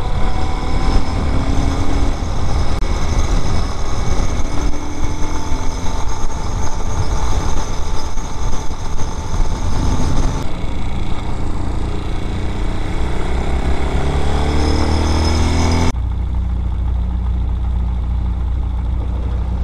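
Vitacci Raven 250's 229cc air-cooled single-cylinder engine running under way, mixed with wind rush on the microphone; its pitch climbs over a few seconds. About sixteen seconds in the sound changes abruptly to a steady low idle.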